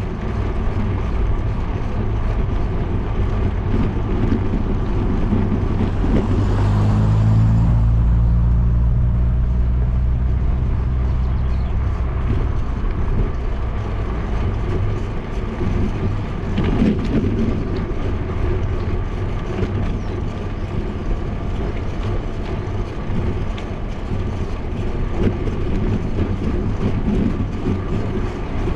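Wind rushing over a GoPro's microphone with low rumble during a bicycle ride. About six seconds in, a car's engine swells past close by, loudest around seven to eight seconds and fading out by about twelve.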